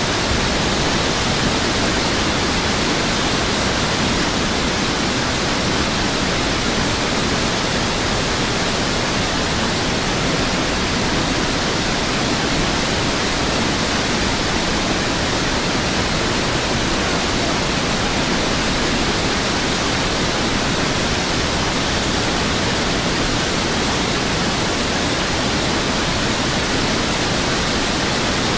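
Rushing water: a steady, even noise that stays the same throughout, with no distinct splashes or breaks.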